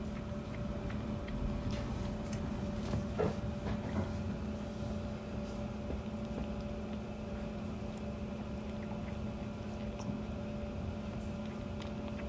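A newborn kitten suckling milk from a nursing bottle, making faint wet sucking clicks, with a few sharper smacks about three to four seconds in, over a steady low hum.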